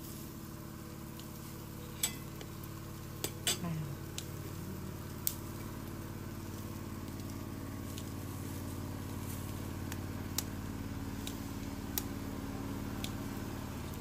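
Meat sizzling on a charcoal grill, with a few sharp metallic clicks and taps scattered through it, over a steady low hum.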